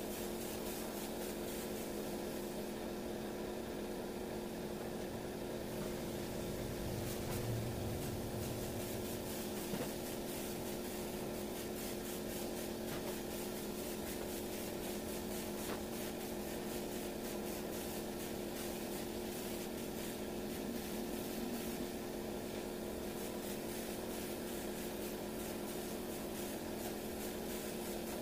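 Air compressor running steadily under the hiss of a spray gun spraying textured orange-peel paint.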